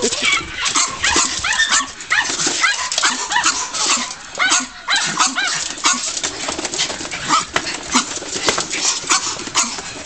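Two miniature pinschers giving many short, high-pitched barks and whines at a Roomba robot vacuum, with frequent sharp clicks and knocks as their paws strike its shell.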